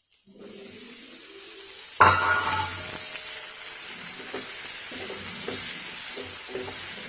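Soaked soya chunks sizzling as they go into hot oily masala in a non-stick frying pan. A loud sizzle starts suddenly about two seconds in, then steady frying follows, with a spatula scraping and stirring through the chunks in repeated strokes.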